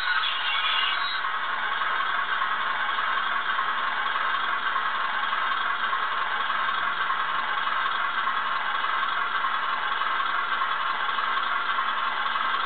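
CTLS76 sound chip in a Graham Farish N gauge Class 37 model locomotive playing a steady diesel engine sound, the English Electric V12 of a Class 37, through the model's tiny speaker. It sounds thin, with almost no bass.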